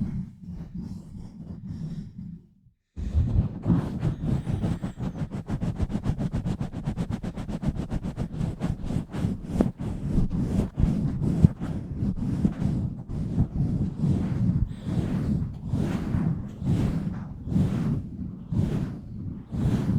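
Hands pumping and rubbing directly over an uncovered microphone, giving close, muffled whooshing strokes. The sound cuts out briefly about two and a half seconds in, then returns as a very fast, even run of strokes that slows to longer, slower pumps in the second half.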